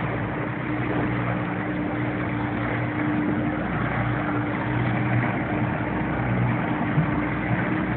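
Boat engine running steadily: an even hum with a constant low drone.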